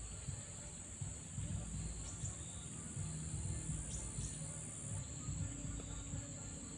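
Insects, crickets or cicadas, droning in one steady high-pitched tone, with a couple of short chirps about two and four seconds in over a low rumble.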